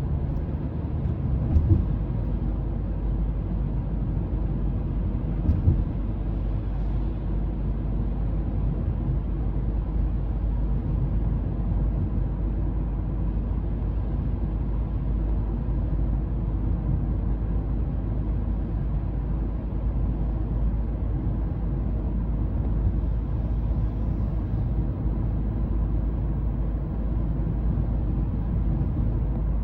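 Mazda 3 driving at highway speed, heard from inside the car: a steady low rumble of tyres and engine. Two brief thumps come about two and five seconds in.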